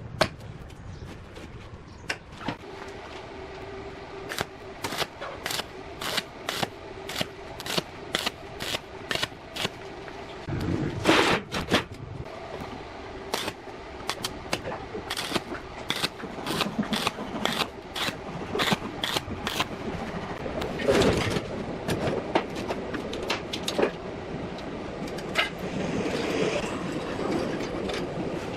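Irregular series of sharp knocks and clicks, often several a second and louder at two points, over a faint steady hum.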